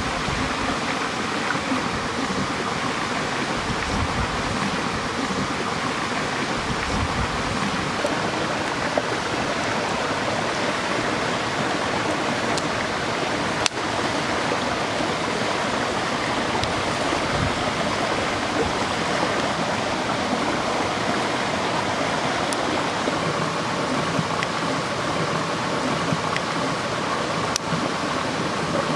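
Steady rushing of a small forest stream, with a few single sharp pops from the wood fire, the loudest about halfway through.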